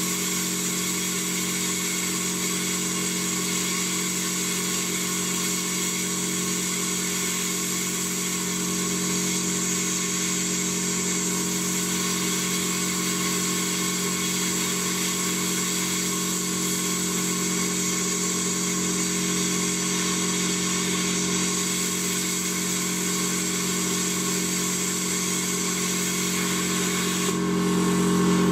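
Ideal Praktik 40 plasma cutter cutting 20 mm black-steel flat bar at 35 amps: a steady hiss of the plasma arc and air over a steady electrical hum, cutting off abruptly near the end.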